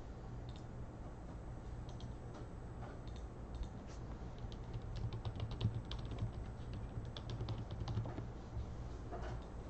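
Typing on a computer keyboard: quick runs of keystrokes, thickest in the middle, over a steady low hum.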